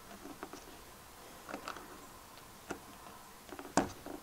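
Small clicks and ticks of fingers and metal parts on a small RV stove igniter switch as a little C-clip is worked off it; a handful of scattered clicks, the loudest near the end.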